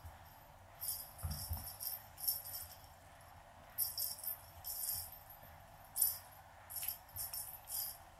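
Small bell on a cat wand toy jingling in short irregular shakes as the toy is jerked about and batted, with a few soft thumps just after a second in.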